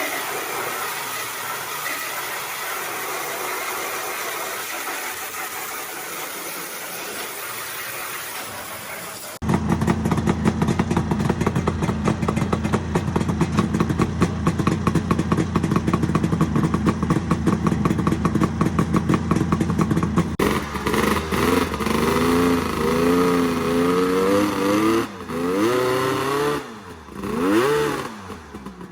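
An old snowmobile engine running, with a rapid even pulse, after about nine seconds of steady hissing noise. In the last eight seconds or so it is revved up and down several times.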